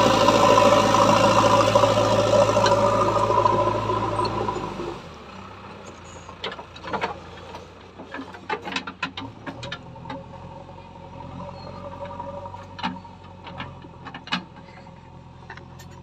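JCB backhoe loader's diesel engine running loud and close, then from about five seconds in quieter and farther off, with a scatter of short sharp clicks and knocks over its running.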